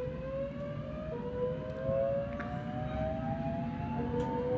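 Southeastern Class 465 electric multiple unit accelerating away, its traction motors giving a rising whine that drops back and climbs again twice, over a low rumble.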